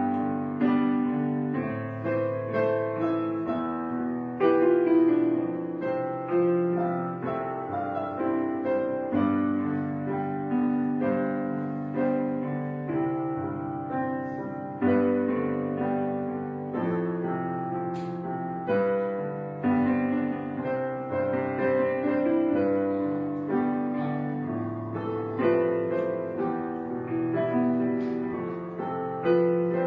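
Gentle solo piano music, notes struck one after another at a slow, even pace.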